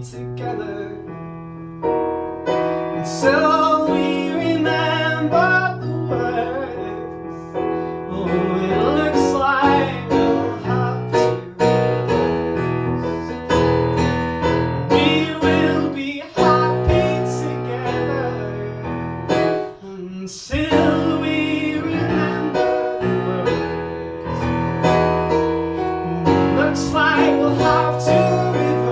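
Live song: a keyboard playing sustained chords, with a singer's voice coming and going over it.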